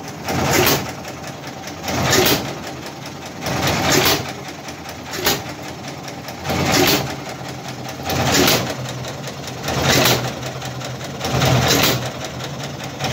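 1936 Stover CT-2 single-cylinder stationary gas engine running, firing about every one and a half to two seconds: eight loud firings, with a low steady hum between them.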